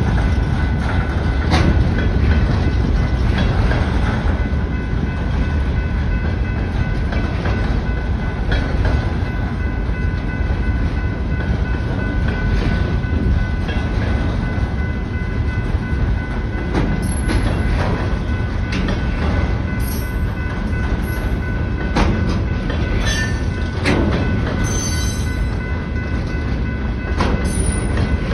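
Freight train of loaded trash-container flatcars rolling past: a steady rumble of the cars, with the clack of wheels over rail joints every few seconds.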